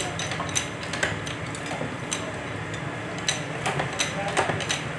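Light, irregular metallic clinks and taps from a strip of sheet metal being set into the clamping beams of a homemade hydraulic sheet-metal bending press.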